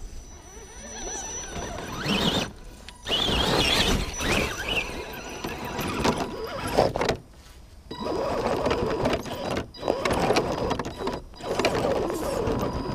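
Axial SCX10 scale RC crawlers climbing over rock and dirt close by: a whine from the electric motor and gears that wavers up and down with the throttle, mixed with scraping and scrabbling of tyres and body on the rock, with a short lull about seven seconds in.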